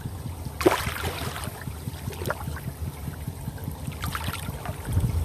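Shallow, muddy water sloshing and splashing as hands grope through it feeling for fish, with a few sharper splashes, the loudest about a second in. A steady low rumble runs underneath.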